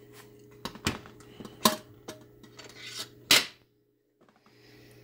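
Stainless steel stacked insert pans and their wire carrying handle clinking and clanking as they are set down on a glass-top stove: a handful of sharp metal knocks, the loudest a little past three seconds in, over a steady low hum.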